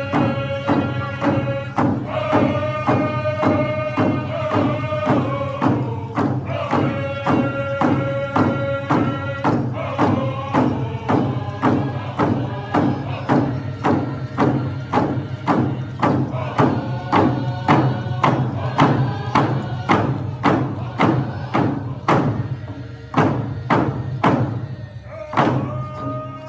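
Powwow drum group singing high, chant-like phrases over a large drum struck by several players in a steady beat, about two strokes a second. The singing pauses for a few seconds near the end while the drumbeat carries on, then comes back in.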